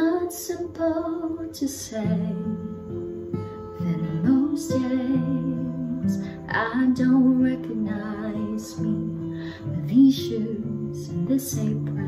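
Acoustic guitar with a woman singing a slow melody over it, her voice wavering on held notes.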